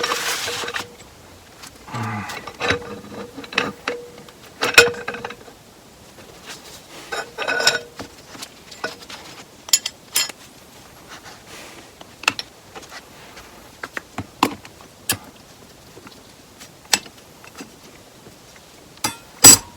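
Transmission clutch discs and steel plates handled and set down one at a time: scattered metallic clicks and clinks, a few with a short ring, with light scrapes between them.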